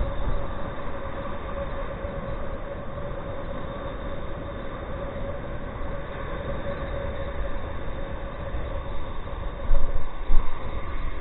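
Surf breaking on the beach with wind buffeting the microphone, a steady rushing noise with a faint steady hum over it. A few loud bumps come near the end.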